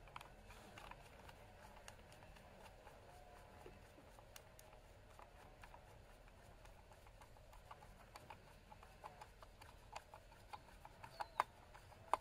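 Faint, scattered clicks of a screwdriver turning the hexagonal screw in the plastic brush housing of a Ryobi RY18PCA patio cleaner, with a few sharper clicks near the end.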